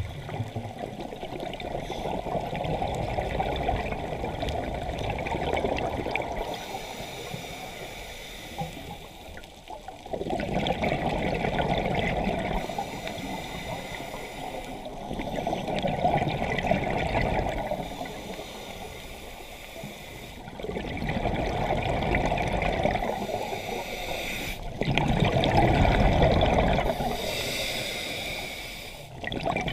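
Scuba diver breathing through a regulator underwater: exhaled bubbles gurgle and rush in surges roughly every five seconds, with quieter stretches between breaths.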